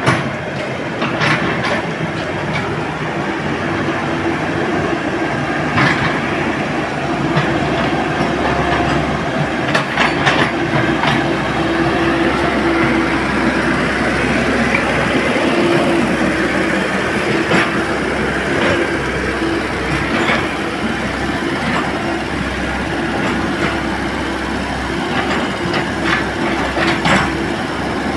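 Komatsu hydraulic excavator working: its diesel engine runs steadily with a held hum, over scattered metallic clanks and rattles.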